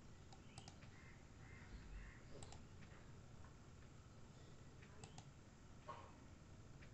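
Faint computer mouse clicks, a few quick pairs of clicks a couple of seconds apart, over near-silent room tone.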